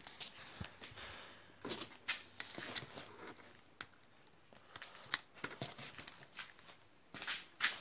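Light handling noises: scattered small clicks and rustling as a pried-out plastic trim piece from the motorcycle is carried off and set down.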